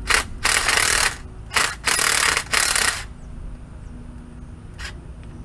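Cordless impact wrench hammering in five short bursts over about three seconds, working a bolt loose on the front of an engine block.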